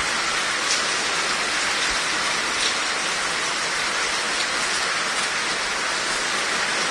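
Heavy monsoon rain pouring down in a steady, even hiss.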